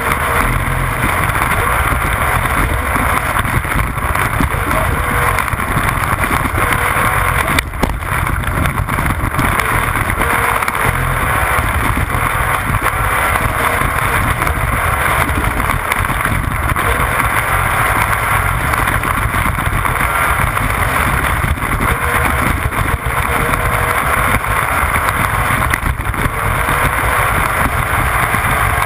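Motorboat running steadily at speed: a constant engine drone under the loud rush of water and spray from the wake, with a brief dip about eight seconds in.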